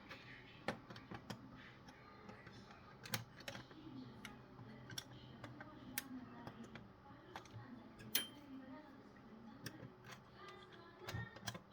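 Faint, irregular clicks and taps of small plastic parts being handled and snapped into place as an SD card cover is fitted to a car radio head unit's plastic casing, with one sharper click about eight seconds in.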